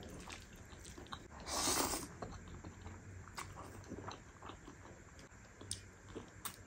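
A person eating black bean ramen noodles with chopsticks close to a lapel mic: soft, wet chewing clicks throughout, with one louder slurp of noodles about a second and a half in.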